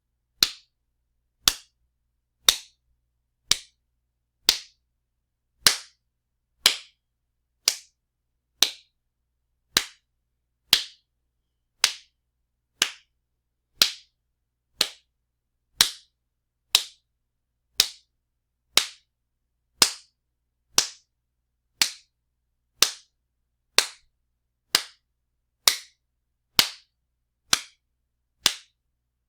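Loud wet slaps, one sharp smack about every second in a long, even series, each dying away quickly.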